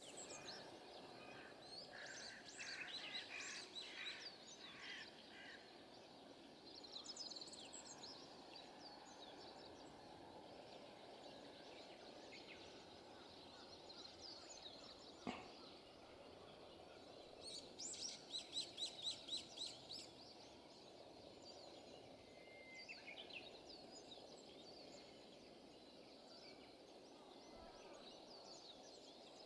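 Faint outdoor ambience with assorted birds calling: scattered high chirps and, about eighteen seconds in, a quick run of rapid repeated notes. A single sharp click sounds near the middle.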